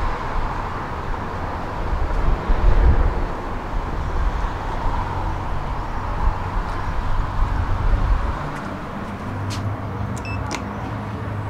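Steady city traffic rumble. Near the end come a few sharp clicks and a brief high tone as the OTIS elevator call button is pressed.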